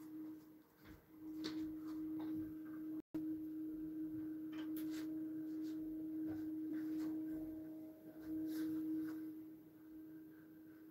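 A steady hum held at one pitch, with a few faint light taps over it; the sound cuts out completely for a moment about three seconds in.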